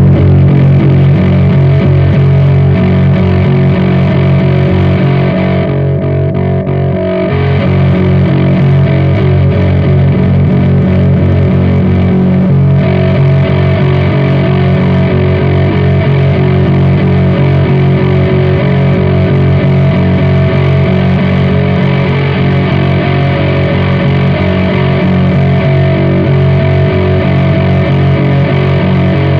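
Heavily distorted electric bass through fuzz pedals and Peavey amps, a held note droning steadily and loud. The treble drops away briefly about six seconds in and the tone shifts again around thirteen seconds, as pedals are switched.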